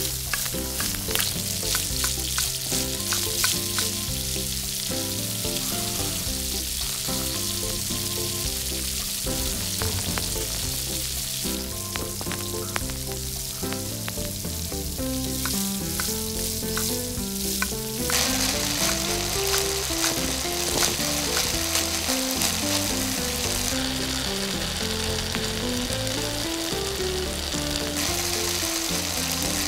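Food sizzling as it fries in oil on a miniature tawa, a steady crackling hiss with scattered light clicks through the first half. About two-thirds of the way in the sizzle becomes denser.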